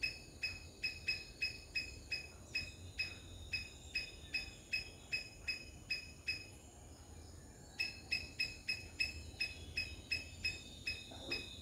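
A short high chirp from an unseen animal, repeated steadily about four times a second. It stops around six seconds in and starts again near eight seconds.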